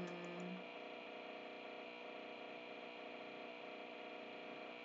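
Steady electrical mains hum with hiss, the background noise of the recording microphone, with a brief held low voice sound fading out in the first half second.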